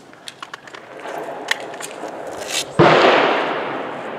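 Light handling clicks from handguns being loaded, then a single loud gunshot about three seconds in that echoes and fades over more than a second.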